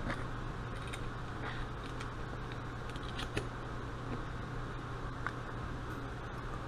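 A few faint, light clicks of small metal parts of a mechanical fuel pump being handled with a screwdriver, over a steady low hum.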